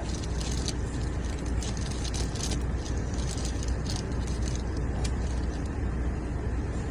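Steady road and engine rumble inside a moving car's cabin, with scattered light crackling clicks over the first five seconds or so.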